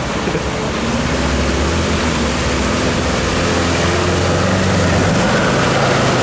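Off-road 4x4's engine running steadily under a loud, even rush of noise, its pitch shifting a little about halfway through.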